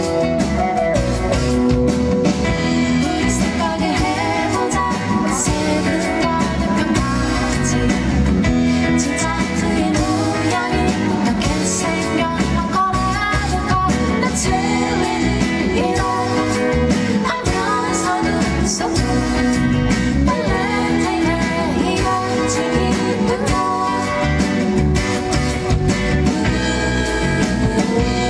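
Live indie pop band performance: a woman singing over guitar and band accompaniment.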